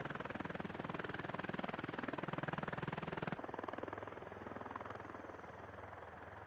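V-22 Osprey tiltrotor's prop-rotors running, a rapid steady beat. A little past halfway the sound changes abruptly, becoming quieter and duller.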